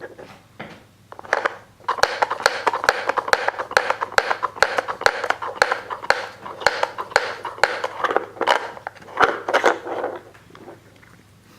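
Hollow plastic bones of a Dog Smart treat puzzle clattering and knocking against its plastic disc as a cat paws and noses them. The rapid clicking starts about two seconds in and dies away near the end.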